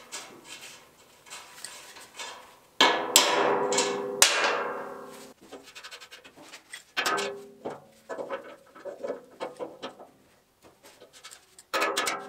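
Metal clinks and knocks as protective nuts and pipe sleeves are worked off threaded studs on a powder-coated steel chassis. A few sharp knocks that ring on come about three seconds in, followed by lighter clicks and taps, and another cluster comes near the end.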